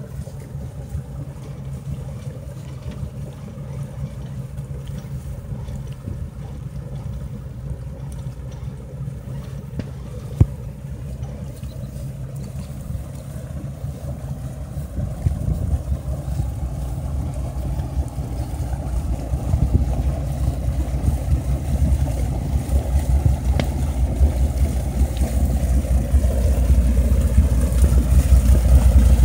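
Wind buffeting the microphone: a low, fluttering rumble that grows louder over the last third.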